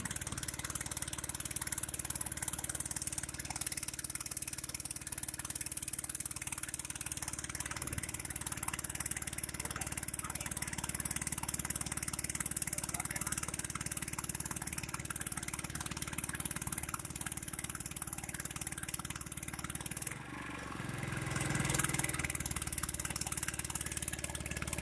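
Vehicle engine running on the move, with steady wind and road noise. About twenty seconds in the sound suddenly drops away, then the engine picks up again with a rising pitch as it accelerates.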